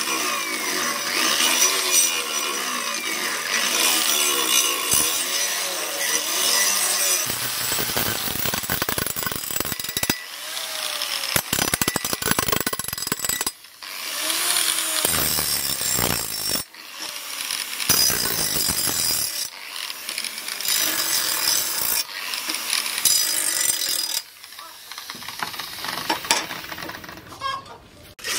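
Angle grinder with a sanding disc working the steel of a cleaver blade, its motor pitch rising and falling over and over as it is pressed along the blade. After about seven seconds this gives way to rougher, noisier scraping passes broken by short pauses.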